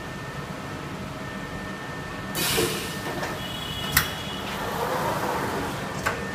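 A TPU shoe-upper embossing and welding press running with a steady hum. About two and a half seconds in comes a short rush of noise, then a sharp clack at about four seconds, then the shuttle tray sliding along its rails, with another click near the end.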